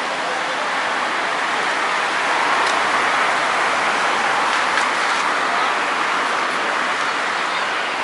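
Steady outdoor city background noise: a dense, even hiss with no distinct events.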